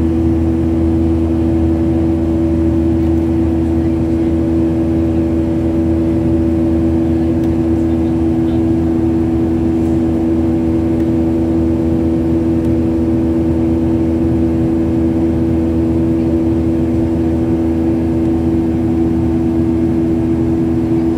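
Steady engine drone inside an airliner's cabin during the climb after takeoff: an even hum with a couple of strong constant tones over a low rumble.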